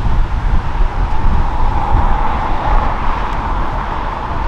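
Storm wind gusting over the microphone in a heavy, uneven rumble, with a steady whine from a Boeing 737-800's CFM56 jet engines on final approach that grows a little louder in the middle.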